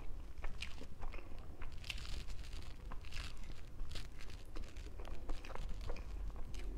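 Close-miked eating sounds: wet bites and chewing of a soft chocolate cream dessert, mixed with brief crinkles of the aluminium foil wrapped around it.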